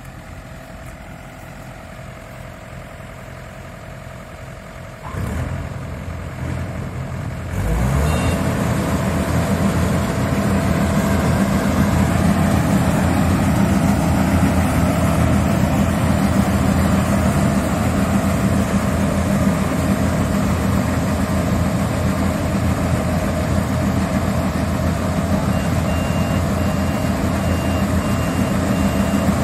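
Yanmar crawler combine harvester's diesel engine idling low, picking up about five seconds in and rising a couple of seconds later to a loud, steady working run. A repeated electronic beep starts near the end.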